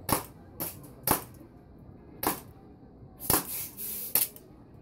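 BB pistol firing repeatedly: five or six sharp cracks, about one a second.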